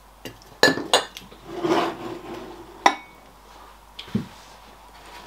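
Ceramic teapots and china knocking and clinking on a tabletop as a teapot is set down among others: three sharp clinks, a short scrape as it slides, and a soft knock near the end.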